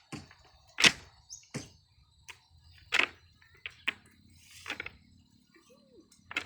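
A series of sharp knocks and clicks at uneven intervals, the loudest about a second in and about three seconds in.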